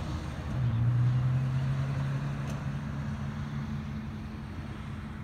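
A vehicle engine's steady low hum over outdoor traffic noise. It is loudest about a second in, then slowly eases off.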